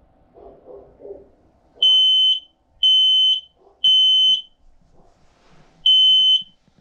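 Household smoke alarm, set off by firecracker smoke, sounding its high-pitched alarm beeps: three beeps about a second apart, a pause, then the three-beep pattern starting again near the end.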